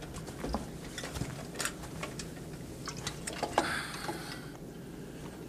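A few light, scattered clicks and knocks over a quiet background, with a brief soft rustle about three and a half seconds in.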